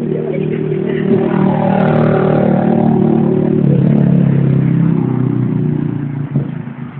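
A motorcycle engine running close by, getting louder over the first few seconds; its pitch steps down about three and a half seconds in, and it fades near the end.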